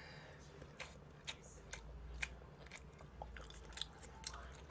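A person chewing a mouthful of instant cup noodles close to the microphone, with a string of small, irregular wet mouth clicks.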